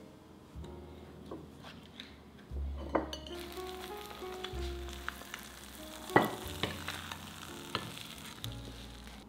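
Eggs frying in a pan, sizzling with a steady hiss that sets in about three seconds in. Two sharp knocks come about three seconds and six seconds in.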